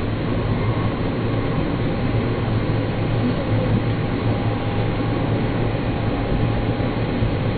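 Electric commuter train running steadily along the track, heard from on board: a continuous low rumble of wheels and running gear with a faint steady whine above it.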